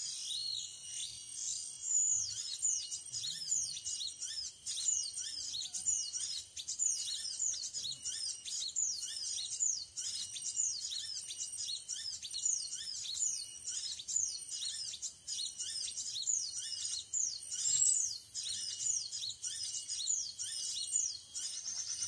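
Recorded bird calls played from an MP3 speaker as a trapping lure: a long, even run of high, quickly falling chirps, about two a second.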